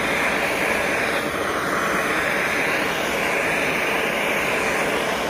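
Handheld gas torch running with a steady rushing flame noise, its blue flame played across carved wood to lightly scorch the surface.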